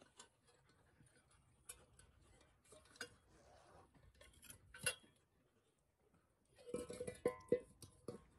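Faint scattered clicks and knocks of metal hand tools and a wire basket being handled on stony ground, then a quick run of louder metallic clinks and knocks near the end.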